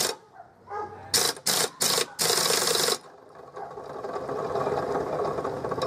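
Pneumatic impact wrench fired in four short bursts, tightening a lawn mower's blade bolt. From about three and a half seconds in, a steady mechanical hum rises and keeps going.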